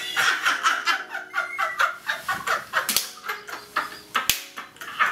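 A man and a woman laughing hard together in quick, breathy bursts, a few a second, fading a little toward the end.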